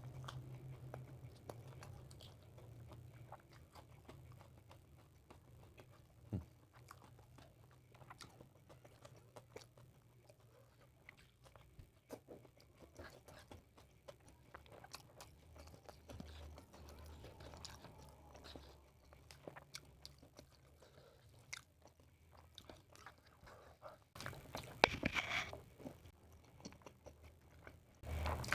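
A person chewing and biting food close to the microphone: soft crunching, mouth clicks and smacks, with a louder spell of crunching about twenty-five seconds in and again near the end.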